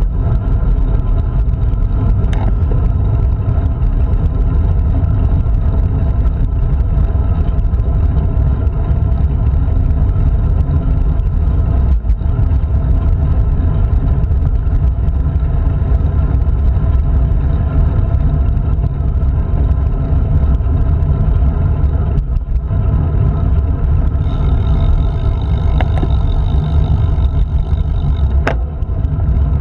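Wind buffeting the microphone of a handlebar-mounted action camera on a moving road bike, a loud steady low rumble mixed with tyre noise on asphalt. A sharp tick sounds about two seconds in and again near the end, and a higher hiss joins for a few seconds near the end.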